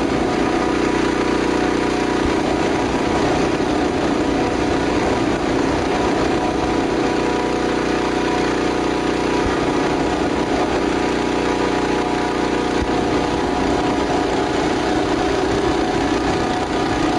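Steady, unbroken engine drone from a recorded vehicle sound effect, with a constant hum and no change in speed.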